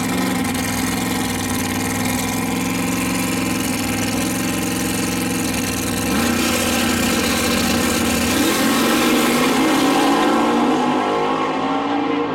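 Fox-body Mustang drag car's engine held at steady revs on the starting line, then launching about six seconds in and climbing in pitch and loudness through a gear change as it pulls away down the strip, with the car in the next lane running alongside.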